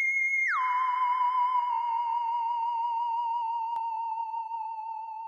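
Eerie, theremin-like electronic tone. A high steady note swoops down about half a second in, then wavers with vibrato as it slowly sinks and fades.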